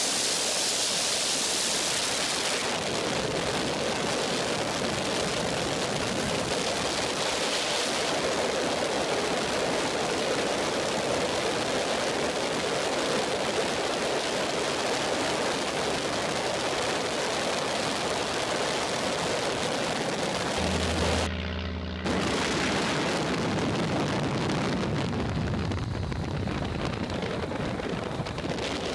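Steady rush of wind and engine noise in the open cockpit of a de Havilland Tiger Moth biplane in flight. About three-quarters of the way through, the hiss briefly drops and a low, steady engine hum comes through.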